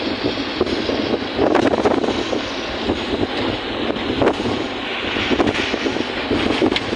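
Floodwater of a swollen river rushing, a loud steady noisy roar.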